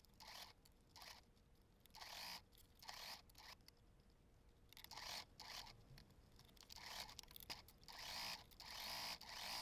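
Faint, short snips of small scissors at uneven intervals, cutting notches into bias tape along a curve.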